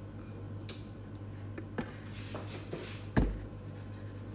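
A few soft, wet clicks from a raw geoduck being handled and bitten into, with a louder thump about three seconds in, over a steady low hum.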